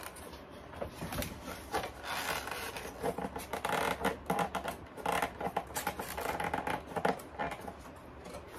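Foam board rubbing and scraping against foam board, with short scratches and light knocks, as a support piece is worked into place under a shelf.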